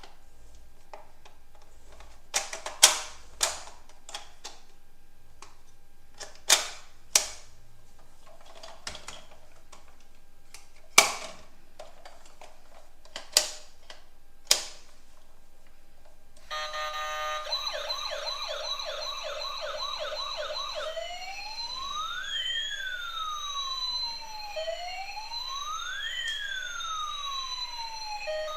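A series of sharp knocks and clicks, like toys being handled and set down, the loudest about 3 and 11 seconds in. Then, about 16 seconds in, an electronic toy emergency-vehicle siren starts: first a fast warble, then slow rising and falling wails in two tones that cross each other.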